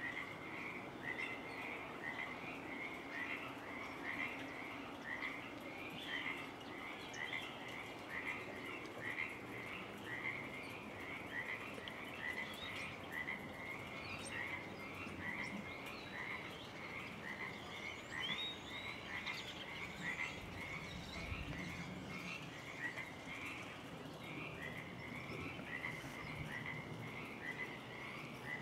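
A chorus of frogs calling, short repeated calls coming about twice a second without a break.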